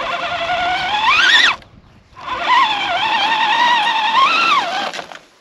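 Scale RC crawler's electric motor and gears whining in two throttle bursts: the first climbs in pitch and cuts off about a second and a half in, the second wavers up and down until near the end. The tyres are struggling for grip on lichen-covered rock.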